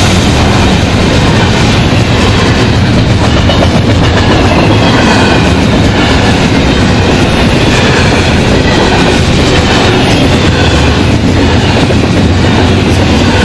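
Double-stack intermodal container well cars of a freight train rolling past at speed: a loud, steady rumble of steel wheels on the rails.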